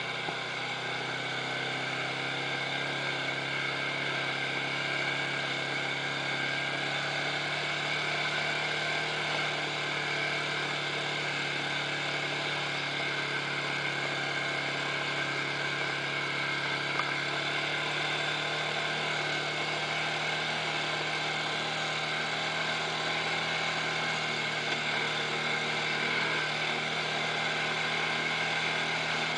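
ATV engine running at a steady pace while riding, a constant drone with several held tones.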